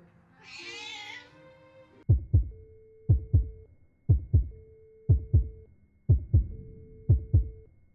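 Heartbeat sound effect over background music: from about two seconds in, low double thuds, one pair about every second, under a held tone. Just before it, a short wavering kitten meow.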